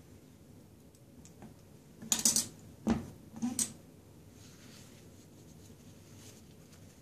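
Handling noises from a reborn doll being moved on a soft blanket: a short rustle about two seconds in, then a sharp light knock and a smaller one within the next second, against quiet room tone.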